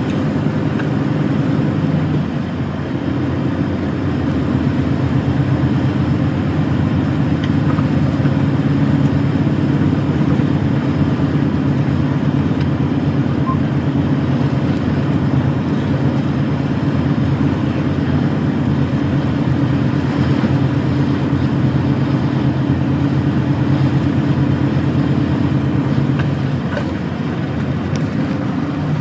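Truck's diesel engine running steadily under way, with road noise, easing off briefly near the end.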